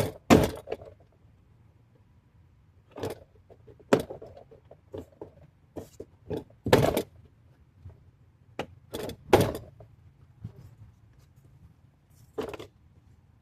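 Plastic door trim parts of a Dodge Durango being handled and the little white retaining tabs pushed into their holes: about a dozen irregular sharp clicks and knocks, some in quick pairs, with short pauses between them.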